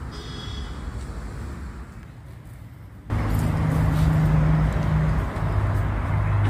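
Quiet outdoor background, then from about three seconds in a louder, steady low rumble with a low hum.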